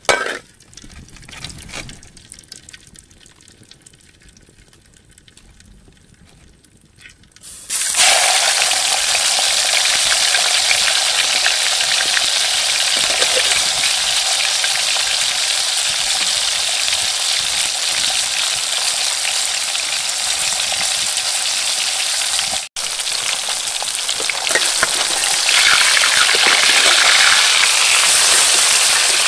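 A metal spatula clinks against a steel wok of hot oil. About eight seconds in, a whole fish goes into the oil and it breaks into loud, steady sizzling as the fish deep-fries.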